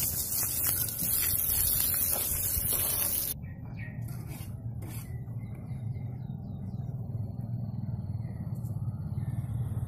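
Hose water spraying and splashing onto stacked AAC (hebel) blocks, pre-wetting them before laying; a loud hiss that cuts off about three seconds in. After that, a low steady outdoor rumble with a few faint chirps.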